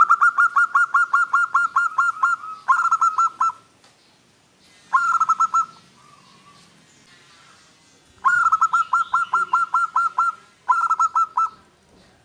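Zebra dove (perkutut) calling in rapid runs of short cooing notes, about seven a second. A long run comes first, then two short bursts with pauses between, then another long run about eight seconds in and a short one near the end.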